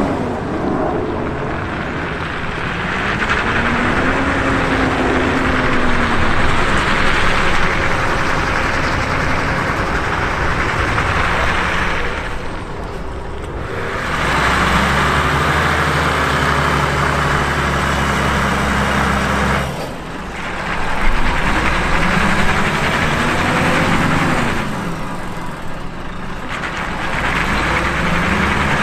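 Heavy Volvo tractor unit's diesel engine working under load as it hauls a large motor yacht on a low-loader trailer, its pitch rising and falling with the revs, under a steady rushing noise. The sound changes abruptly twice, about 13 and 20 seconds in.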